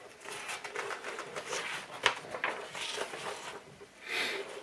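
Paper instruction booklet being handled and its pages turned, rustling with a few light taps and a louder page swish about four seconds in.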